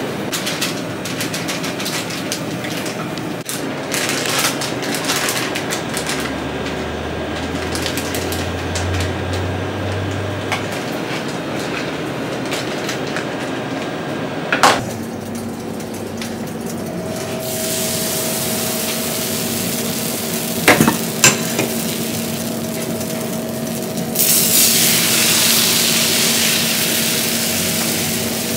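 A wire whisk scraping and tapping around plastic bowls as whipped cream is stirred. Then batter sizzles in an even hiss on a hot round crepe griddle as it is spread with a wooden rake.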